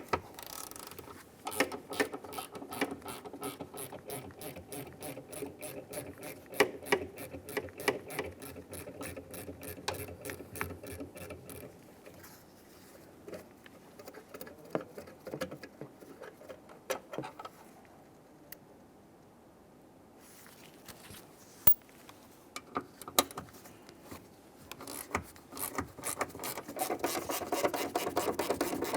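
Ratchet wrench clicking rapidly as 13mm hinge-to-door bolts are turned out, in two long runs with a quieter stretch and a few single clicks between them.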